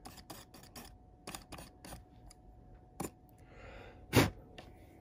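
Fibre pen scrubbing in short rapid scratchy strokes, about three or four a second, over the painted body of a small N gauge plastic wagon, scraping off weathering paint. The strokes stop about two seconds in; near the end comes a soft hiss and then a single sharp knock, the loudest sound here.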